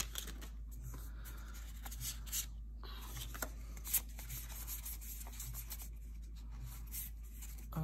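Faint rubbing and sliding of Magic: The Gathering cards being flicked one by one from a stack in the hand, with small soft clicks as card edges snap past each other.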